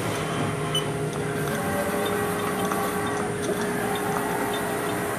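Haas VF-3 vertical machining center running, a steady mechanical hum with a steady whine held through it and a few faint light ticks.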